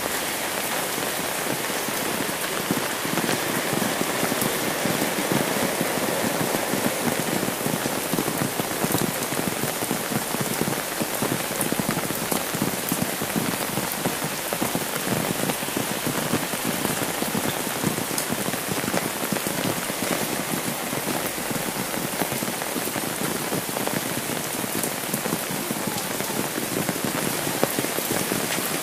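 Steady rain pattering on an umbrella overhead and falling on a wet road, a dense, even patter of drops.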